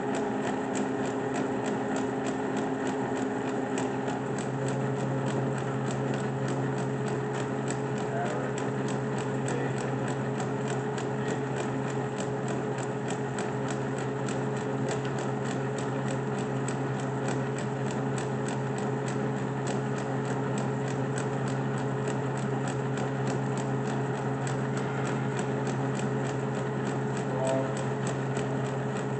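South Bend 13-inch engine lathe running under power: a steady motor and gearing hum with a fast, even ticking.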